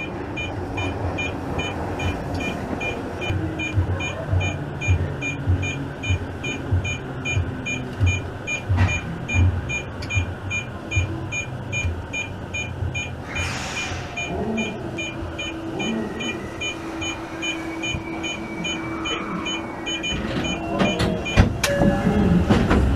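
Tozai Line subway train braking into a station, heard from inside the car: running rumble with rhythmic wheel clatter, a short hiss of air about halfway through, and a steady motor tone as it slows. It ends in clunks as it stops and the doors begin to open.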